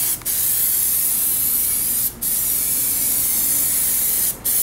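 Aerosol can of PlastiDip liquid rubber spraying in a steady hiss. The nozzle is let go for a moment between strokes, giving short gaps about every two seconds.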